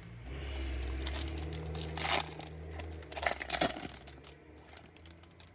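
Plastic-foil trading-card pack wrapper being torn open and crinkled by gloved hands, with the loudest crackles about two seconds in and again between three and four seconds.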